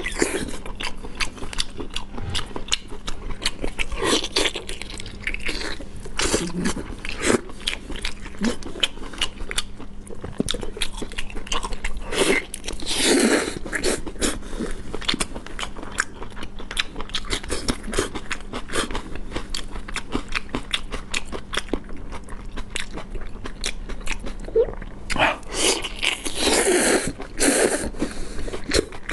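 Close-miked mouth sounds of a person biting and chewing octopus: a steady run of quick wet clicks and smacks, with louder stretches about halfway through and again near the end.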